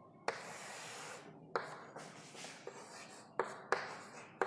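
Chalk writing on a chalkboard: about six sharp taps as the chalk strikes the board, each followed by a scratchy stroke.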